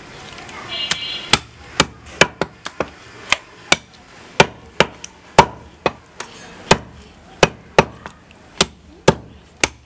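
Butcher's cleaver chopping goat meat on a wooden log chopping block: a run of sharp, separate chops at an uneven pace, about two a second.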